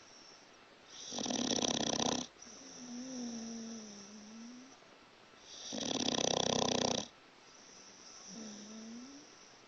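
Staffordshire bull terrier snoring loudly: two rasping snores about four and a half seconds apart, each followed by a softer whistling whine.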